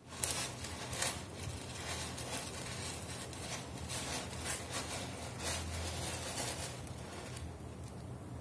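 A kitten's paws scratching and raking pellet cat litter in a plastic litter box: irregular scratchy rustles of pellets shifting, dying down about seven seconds in.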